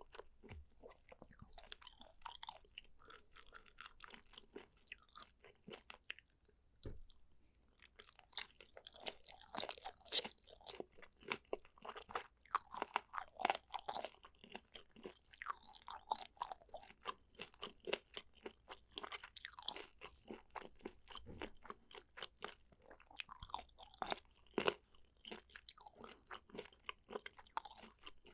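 Close-miked chewing: a dense run of wet mouth clicks and squelches from food being chewed, with a short lull about seven seconds in.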